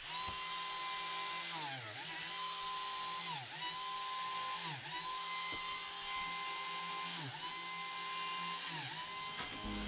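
Cordless Makita biscuit joiner running steadily while cutting biscuit slots in the mitered ends of boards. Its pitch dips briefly each time the blade plunges into the wood, about six times.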